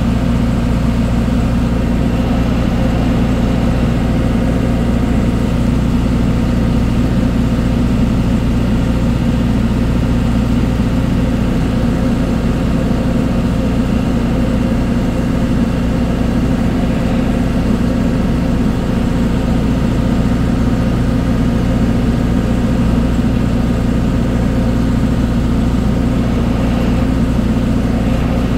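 A ship's engine running steadily: a loud, even low drone that does not change.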